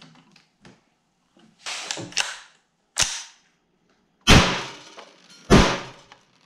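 AR-15 with a CMMG .22 LR conversion bolt firing .22 LR rounds indoors: a lighter sharp crack, then two loud shots about a second apart, each followed by room echo. Some rattling of the gun comes first.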